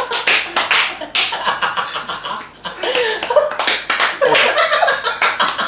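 Several people clapping their hands in quick, uneven runs of sharp, cracking claps, easing off briefly about two seconds in and then picking up again, with laughter in between.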